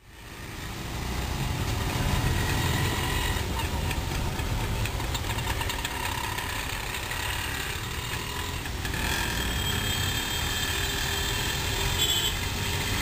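Busy city street traffic: a steady mix of vehicle engines running and idling, fading in over the first second or so.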